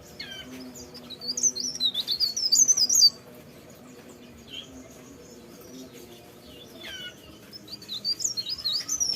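A cikrak daun (leaf warbler) singing two fast bursts of high, rapidly jumping notes, each opened by a falling note, a few seconds apart. A faint steady low hum runs underneath.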